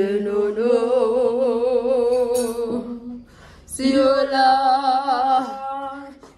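A woman singing without accompaniment: two long held phrases with a wavering vibrato, the second beginning a little under four seconds in.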